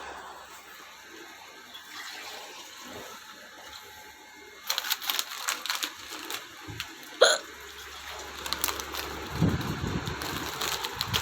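A woman's sharp hiccup about seven seconds in, the loudest sound, in the middle of a long, unbroken bout of hiccups. It comes amid scattered short clicks.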